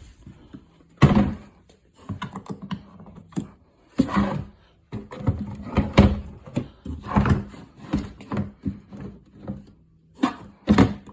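Hard plastic DeWalt TSTAK case being handled and pushed onto its mount to latch, a string of thunks, knocks and clicks, the loudest about a second in and near the end.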